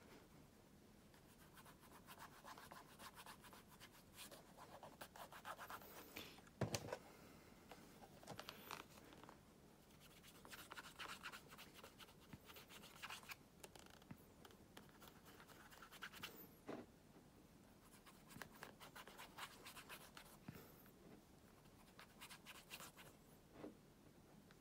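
Bare fingers rubbing shoe cream into a black leather shoe: faint scratchy rubbing strokes that come in spells. A single sharp knock about seven seconds in, with a couple of lighter clicks later.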